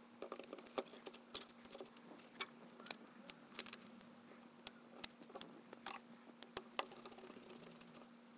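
Faint, irregular clicks and taps of a steel-cored transformer and small metal and plastic parts being handled and set into a plastic case, a few knocks a second, over a faint steady hum.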